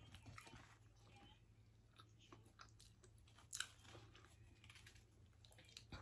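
Faint eating sounds: quiet chewing of ciabatta pizza with scattered small clicks, one sharper click about three and a half seconds in, over a low steady hum.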